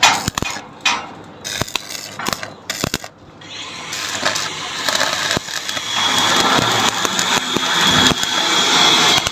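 A few sharp knocks and clicks, then from about three and a half seconds the steady crackling hiss of a MIG welding arc. A thin high whine joins it about halfway through.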